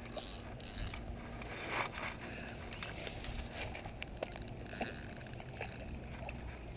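Scattered clicks, ticks and scrapes of fishing tackle being handled while a landing net on a long pole is worked in the water to net a hooked channel catfish, with a few brief rustling bursts of movement.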